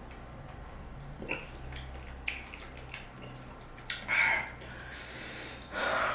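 Close-up eating sounds: wet chewing and smacking of dragon fruit in short bursts, then a longer hissing breath near the end, over a steady low hum.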